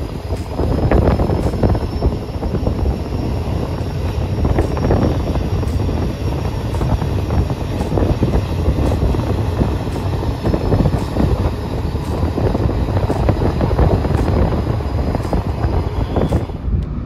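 Wind buffeting the microphone over a steady low rumble, gusting up and down.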